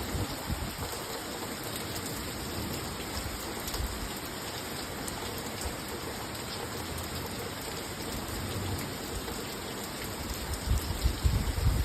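Steady rain shower falling and pattering on surfaces, an even hiss throughout. A few low rumbles rise under it near the end.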